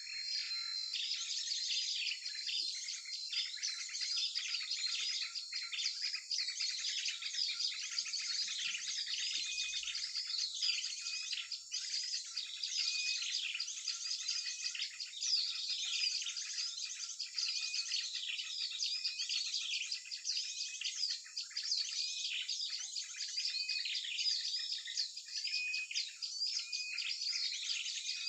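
Dense, unbroken chorus of many small birds chirping and twittering over one another, with quick falling whistles repeating throughout: a mixed small-bird lure call recording.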